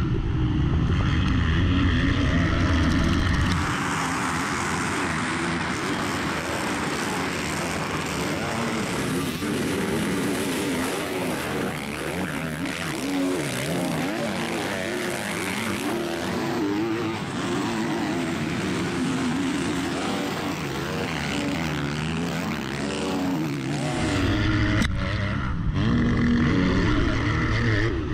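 Motocross bikes racing, engines revving up and down as they accelerate and shift. About four seconds in the heavy close-up engine rumble drops away to more distant bikes, and it comes back near the end.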